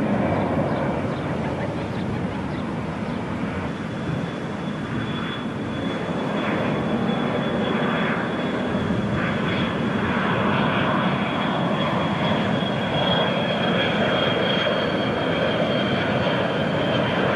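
Jet airliner engines on landing approach: a steady rushing drone with a thin high whine held over it, growing slightly louder in the second half as the aircraft nears.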